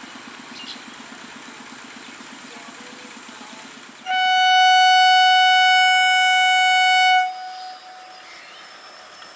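Indian Railways WAP4 electric locomotive's air horn sounding one long, steady blast of about three seconds, starting sharply about four seconds in and cutting off sharply. Before it, a low engine idles with an even putter.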